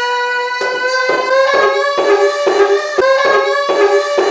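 A man singing loudly: one held note, then a quick run of short repeated notes at about the same pitch.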